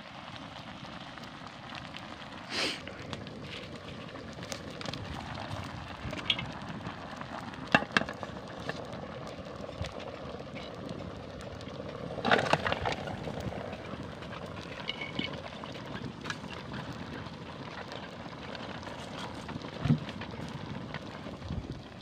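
Open wood fire of sticks and twigs crackling and popping under a cooking pot, with scattered sharp snaps. A few louder knocks stand out, the biggest about twelve seconds in.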